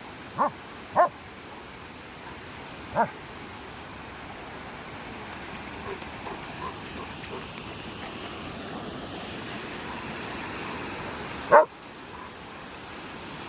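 A dog giving four short, sharp yips, three close together in the first few seconds and a louder one near the end, over a steady hiss.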